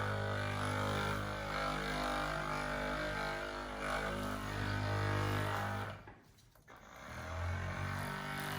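Background music built on a low, steady droning tone, which cuts out briefly about six seconds in and then returns.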